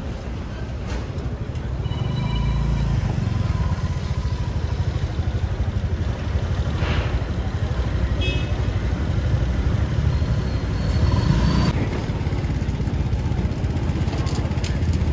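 Low engine rumble of street traffic passing close by, building a couple of seconds in and easing off about three seconds before the end.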